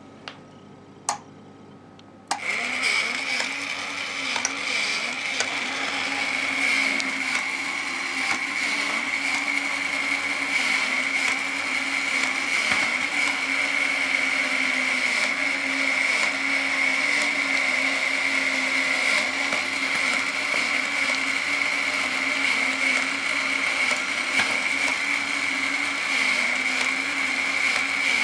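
Small electric motor and gear train of an antique animated toy starting with a click about two seconds in, then whirring steadily with a high whine as the figure moves.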